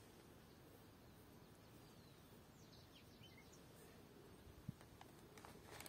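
Near silence: faint outdoor garden ambience with a few distant bird chirps, and a couple of soft clicks near the end.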